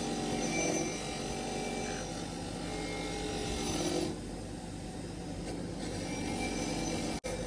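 Workshop tool working metal: a steady rubbing, rasping noise over a machine's running hum. It eases about four seconds in.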